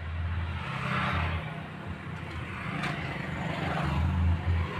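Road traffic passing close by: motorcycles and an auto-rickshaw going past over a steady low engine rumble. The engine and tyre noise swells about a second in and again near the end.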